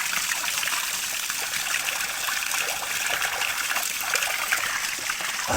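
Small stream of clear water trickling and flowing steadily over stones, an even splashing hiss. A brief low bump right at the end.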